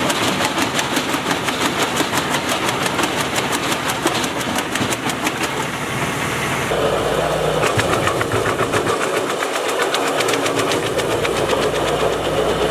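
Tractor-driven ARPAL branch logger running, a steady machine noise with a rapid, even clatter. The sound changes character about seven seconds in.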